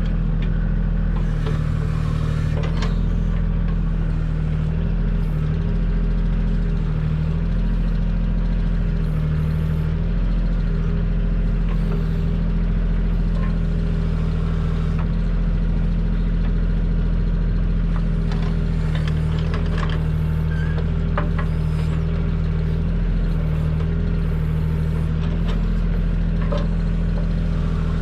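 Kioti compact tractor's diesel engine running steadily while the backhoe digs, with occasional clanks.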